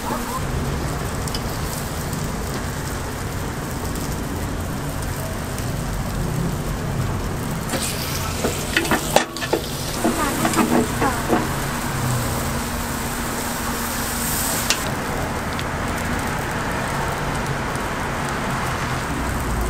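Batter sizzling steadily in hot cast-iron fish-shaped bread (bungeoppang) molds, with a short run of metal clanks and clicks about halfway through as the molds and tools are worked.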